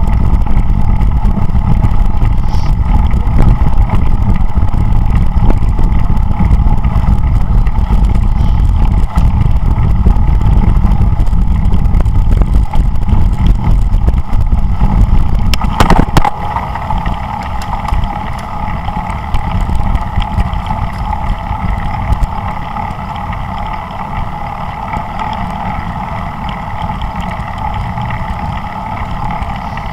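Wind rumbling over a bike-mounted camera's microphone while cycling at speed, with a steady whine throughout. A knock about 16 seconds in, after which the wind noise drops noticeably.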